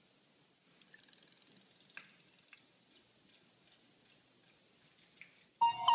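Near silence with a few faint, scattered ticks. Near the end a loud electronic tune of steady notes cuts in abruptly.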